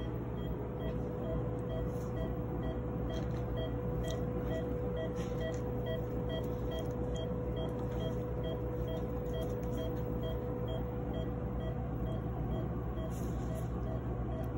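Anaesthesia monitor's pulse beep repeating evenly about twice a second, over a constant low hum and a steady tone from surgical equipment. A few faint clicks of instruments come through now and then.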